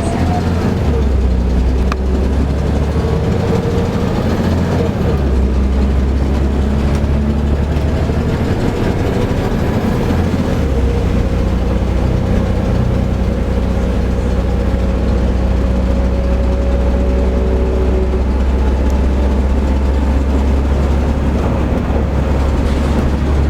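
Volvo B7TL double-decker bus's diesel engine and drivetrain running on the move, heard from inside the bus. A steady heavy low drone carries thin whining tones that drift slowly up and down with speed, with a few faint clicks.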